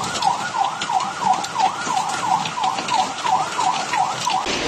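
An emergency-vehicle siren in a fast yelp, sweeping up and down about three times a second, stopping shortly before the end, over a steady hiss of heavy rain and hail.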